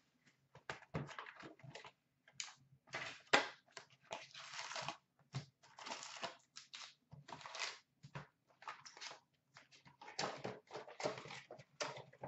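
A cardboard box of hockey trading cards being opened by hand and its foil packs handled: irregular rustling and crinkling of cardboard and wrappers, broken by short sharp clicks.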